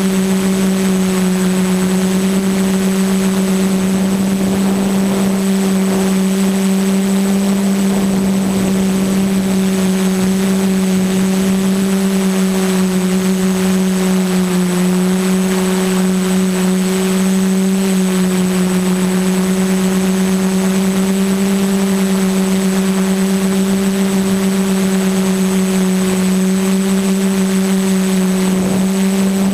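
QAV 500 quadcopter's electric motors and propellers humming steadily in flight, heard up close from the camera on board, with a thin high whine above the hum. The pitch dips briefly about halfway through, then holds steady again.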